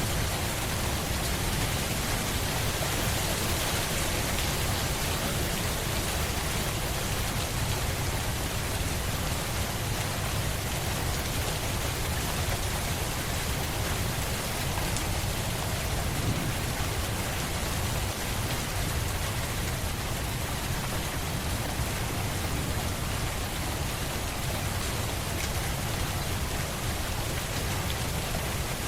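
Steady, heavy rain falling: an even hiss with a low rumble underneath and no let-up.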